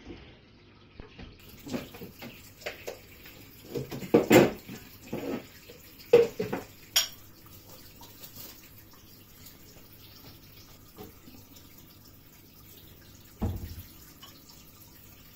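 Scattered kitchen knocks and clatter, loudest about four and six seconds in, with one more knock near the end, over a faint steady low hum.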